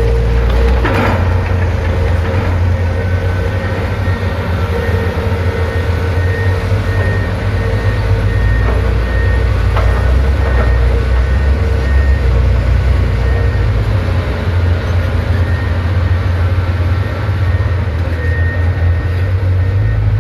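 Heavy truck's diesel engine running steadily under load, a deep continuous rumble, with a faint high tone pulsing on and off.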